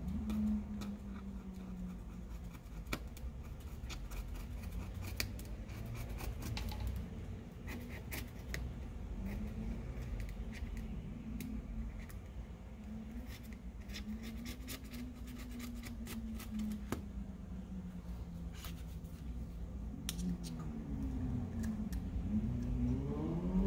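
Small metal pick scraping and clicking along the edge of a Google Pixel's midframe, a quick irregular series of sharp ticks and scratches, with a low drifting hum underneath.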